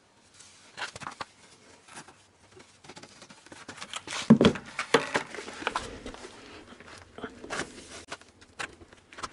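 Wet sand-and-cement concrete mix sliding and plopping out of a tipped bucket into wooden formwork lined with plastic film, with scraping and irregular knocks of the bucket. A cluster of heavier knocks comes about four seconds in.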